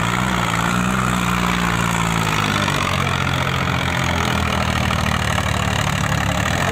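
Preet 955 tractor's diesel engine running steadily while the tractor balances on its rear wheels in a wheelie, its low engine note wavering slightly in pitch.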